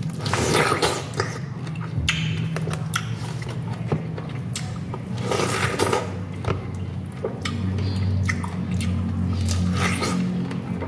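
Biting into and chewing a whole peeled pineapple held in the hand: wet, crisp bites of the fruit at irregular intervals, with chewing in between, over a steady low hum.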